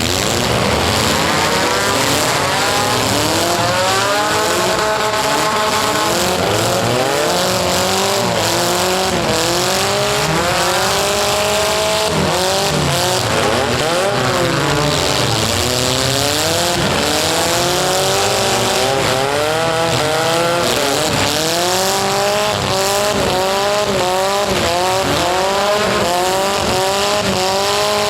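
Several demolition-derby compact cars' four-cylinder engines revving up and down over and over, overlapping one another.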